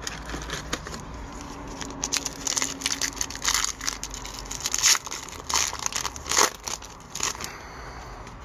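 Foil wrapper of an Upper Deck hockey card pack being torn open and crinkled by hand, in a run of sharp crinkles from about two seconds in until near the end.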